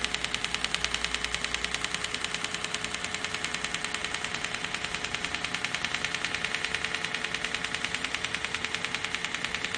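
Welding arc from a robot-held welding torch, a steady crackling buzz that pulses evenly several times a second, with a faint steady hum underneath.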